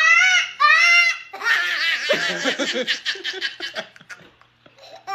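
Two short high-pitched wailing cries, then a burst of rapid laughter from about one and a half seconds in, with a deeper laugh joining in and the laughter fading out after about four seconds.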